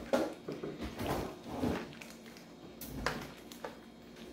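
Scissors cutting through a paper envelope, with paper rustling: a run of uneven snips over the first two seconds, then two sharper snips about three seconds in.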